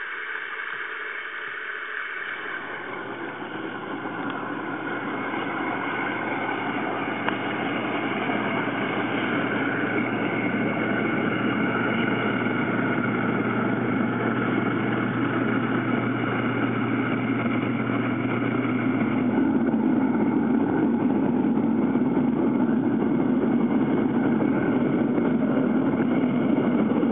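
Maax bathtub's hydrotherapy jets running: water churning and bubbling, with a steady low motor hum from about two seconds in that stops about two-thirds of the way through. The water noise slowly grows louder.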